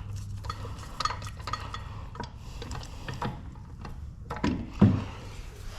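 Scattered light clicks and clinks of metal tools and hardware being handled, with a couple of louder knocks a little before the end.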